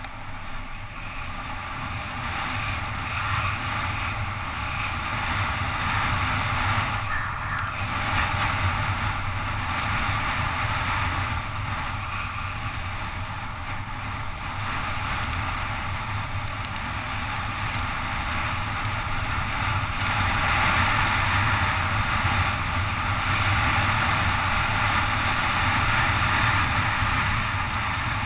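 Steady rushing wind noise on a helmet-mounted camera and tyre hiss on wet asphalt during a fast downhill bicycle ride, swelling and easing with speed and growing louder in the second half.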